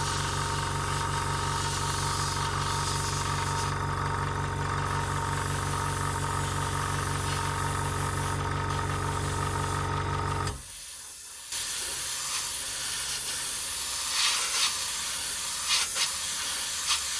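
Airbrush spraying paint with a steady hiss over the hum of its air compressor; the compressor cuts out about ten seconds in, and the hiss of the airbrush carries on after a brief pause, with a few short puffs of air near the end.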